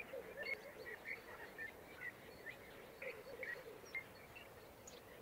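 Faint dawn birdsong: a steady scatter of short high chirps, with a lower warbling call now and then.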